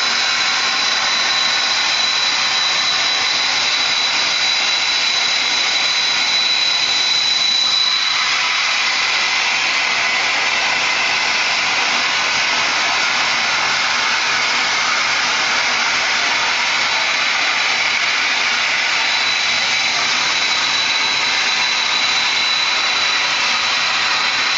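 Hypertherm 130 plasma torch on a CNC cutting machine cutting through 25 mm mild steel plate: the plasma arc makes a loud, steady hiss, with a thin high whistle held through it.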